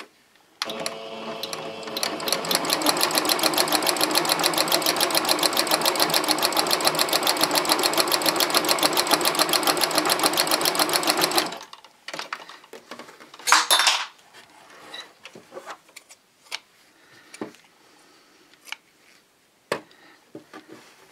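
Sewing machine stitching a seam along a drawn line, building up over the first second or so to a rapid, even stitch rhythm for about ten seconds, then stopping. After it stops come scattered light clicks and one brief louder handling noise.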